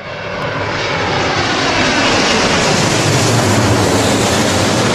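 Jet aircraft roaring as it passes, swelling in over the first second and then holding steady and loud, with a low hum underneath.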